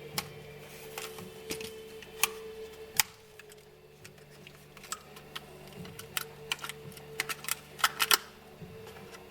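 Irregular sharp clicks and taps of a die-cast toy car's plastic and cardboard packaging being handled and opened, with a quick run of clicks near the end, over a faint steady hum.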